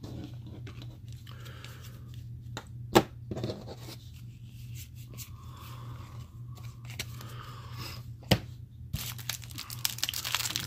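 Trading cards handled on a tabletop, with two sharp knocks about three and eight seconds in. Near the end comes the crinkle of the cellophane wrapper being torn off a pack of cards. A steady low hum runs underneath.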